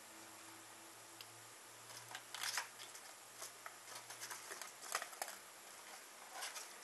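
Faint rustling of paper seed packets being handled and lifted out of a cardboard box, with short scrapes and soft taps, starting about two seconds in.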